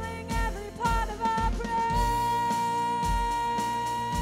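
Live contemporary worship band playing: a drum kit keeps a steady beat under electric guitars and keyboards, and a melody line moves, then settles onto one long held note about a second and a half in.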